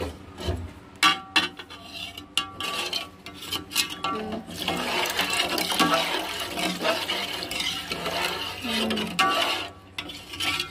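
Water poured from a glass into a metal pot of fish curry gravy, splashing steadily for about five seconds in the second half. It is preceded by a few clinks of metal against the pot.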